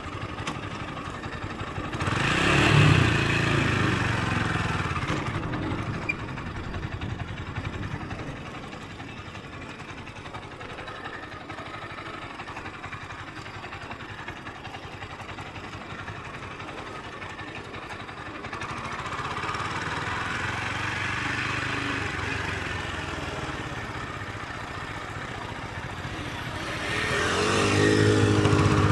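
Motorcycle engine running and being revved, swelling louder about two seconds in and again near the end, with quieter idling-like running between.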